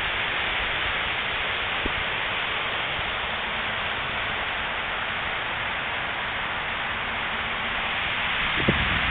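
Steady hiss of fountain water spraying and falling into a pool.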